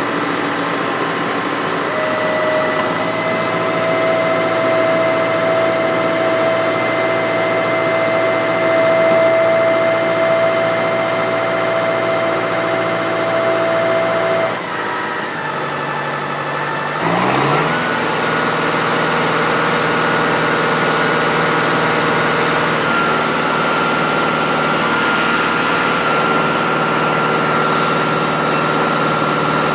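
Tractor-driven Gafner Roto side-discharge manure spreader running, a steady machine sound with a whining tone. A bit under halfway through it dips and drops in pitch for a couple of seconds, then climbs back up to a new steady pitch.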